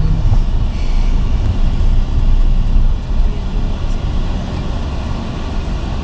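Steady low rumble of a vehicle's engine and tyres heard from inside the cabin as it rolls slowly over a gravel lot.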